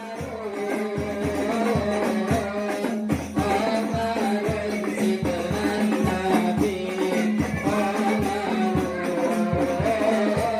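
Hadrah ensemble playing: rebana frame drums beat a quick, steady rhythm with jingling tambourine, under a sung melody.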